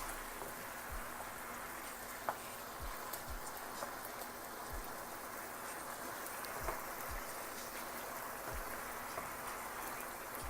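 Chicken sizzling in a pan: a steady frying hiss with scattered small pops and crackles.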